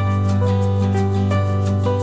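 Instrumental background music: plucked melodic notes over a held bass line, with a light steady beat.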